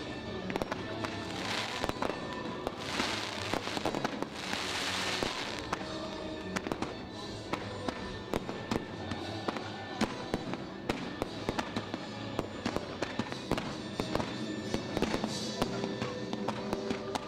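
Firework display: a dense run of cracks and bangs from bursting aerial shells, with hissing swells of launches and fountains a second or two in, again from about three to five seconds, and near the end. Music plays underneath.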